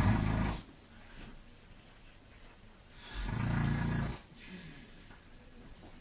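A man snoring loudly in slow, regular, rattly snores about three and a half seconds apart. One snore fades out in the first half-second and another runs for about a second starting about three seconds in.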